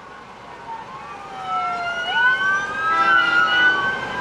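Emergency vehicle sirens wailing, two or more at once, each sliding slowly up and down in pitch and overlapping. They grow louder about a second and a half in.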